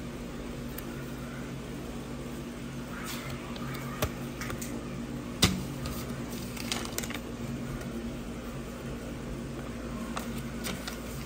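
Paper cards being handled and unfolded, with light rustles and a few sharp taps, the loudest about halfway through, over a steady low hum.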